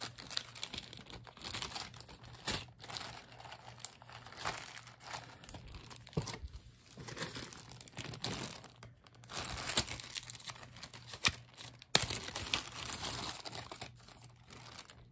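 Clear plastic zipper bags crinkling and rustling as they are handled and pulled open, with many small clicks and a sharp snap toward the end.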